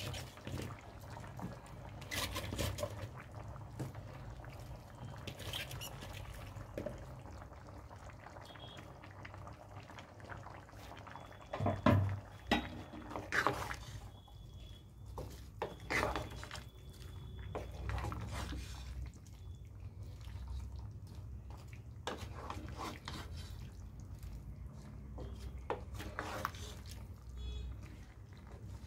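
Vegetable curry cooking in a frying pan: wet bubbling and sloshing with scattered knocks, the loudest about twelve seconds in as more cauliflower florets go into the pan. Near the end a wooden spatula stirs the cauliflower, potato and eggplant.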